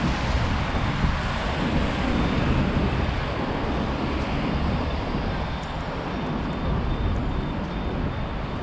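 Steady city street traffic: road vehicles running past, with a heavy low rumble.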